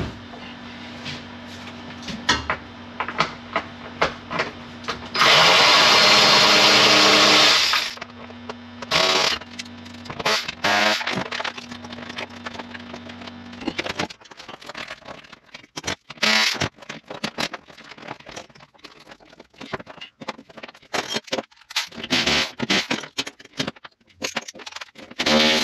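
Screws being removed and plastic trim handled inside a stripped car cabin: tools and parts clicking and clattering, with a loud power-tool whir lasting about two and a half seconds about five seconds in and shorter whirs after. A faint steady hum underneath stops about halfway through.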